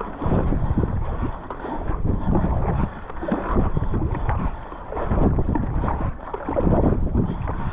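Fast kayak paddle strokes: the Werner Cyprus paddle blades pulling and splashing through the water in a regular rhythm, swelling about every second and a half. Wind buffets the microphone throughout.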